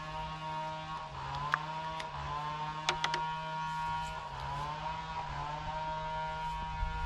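Small gasoline engine of a power sprayer running steadily, its speed drifting slightly up and down. A few short clicks come about one and a half and three seconds in.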